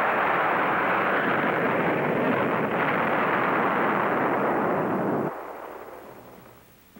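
Explosion of an air strike: a dense, steady roar that breaks off abruptly about five seconds in and then fades away.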